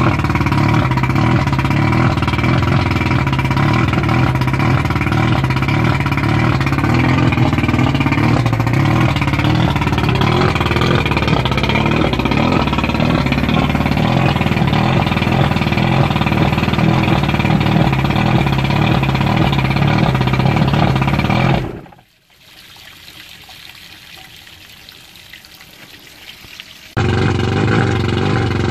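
1989 Mercury 100 two-stroke outboard, cowling off, running steadily at a fast idle of roughly 1200 to 1400 rpm. Near the end the sound drops sharply to a low level for about five seconds, then comes back abruptly.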